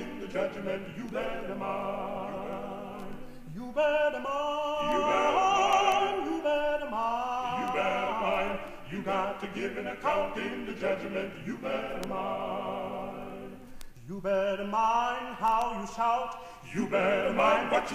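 A male vocal quartet of two tenors, a baritone and a bass singing a spiritual in harmony. The voices carry a wavering vibrato, and the singing comes in phrases with short breaks between them.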